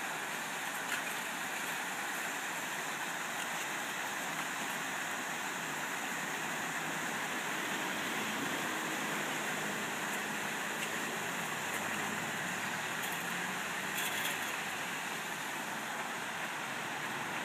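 Steady rushing of a small waterfall and stream, with a few light clicks now and then.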